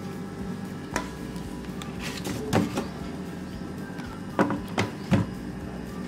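Stainless steel lidded pots being handled and set down on refrigerator shelves: several light knocks and clinks over a steady low hum.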